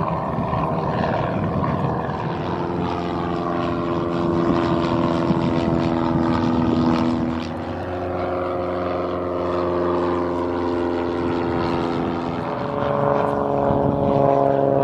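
Single-engine piston propeller planes passing low overhead one after another: a Cessna, then a Piper PA-28, then a Cirrus SR22. Each gives a steady engine drone whose pitch drops slightly as it passes. The sound changes abruptly about halfway in and again near the end as one plane gives way to the next.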